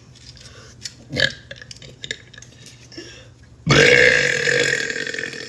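A woman's long, loud burp that starts suddenly about two-thirds of the way in and holds one steady pitch for nearly two seconds as it fades.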